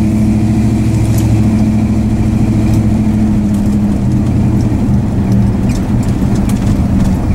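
1966 Dodge Dart GT's engine running steadily as the car drives along, heard from inside the cabin. The engine note changes about four seconds in.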